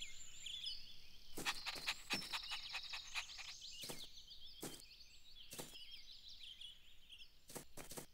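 Soft birdsong ambience, many short chirps, with a scattering of light taps, several in quick runs of two or three.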